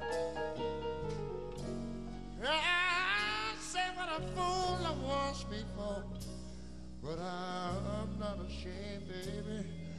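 Live big-band ballad with keyboard and band accompaniment. A male voice sings two long, bending phrases without clear words, starting about two and a half seconds in and again about seven seconds in.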